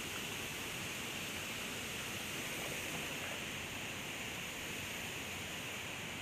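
Steady rush of a shallow creek's water running over a rock bed.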